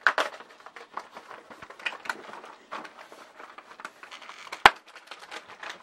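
Rustling and irregular crackling clicks from handling a cardboard advent calendar, with one sharp click about four and a half seconds in.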